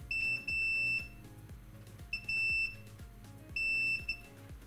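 Digital multimeter's continuity beeper sounding in four short, irregular beeps of uneven length as its probe is pressed on a smartphone button flex cable's trace at a hairline crack. Soft background music underneath.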